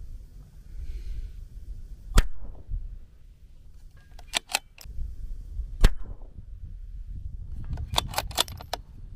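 .22 LR bolt-action rifle firing two shots about three and a half seconds apart, each with a short falling echo. Each shot is followed a couple of seconds later by a quick run of metallic clicks as the bolt is worked to chamber the next round.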